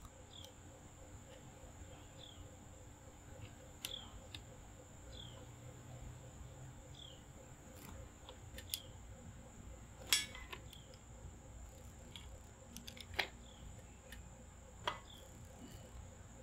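A few sharp clicks and taps, the loudest about ten seconds in, from hands working a metal post bracket. Behind them are a faint steady high insect drone and a bird's short falling chirp that repeats every second or two.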